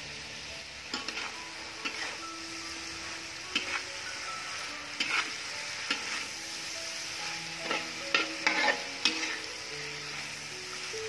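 Metal spatula scraping and clacking against a wok while stir-frying shrimp, tofu and Chinese chives, over a steady oil sizzle. The scrapes come irregularly and bunch together in the later part.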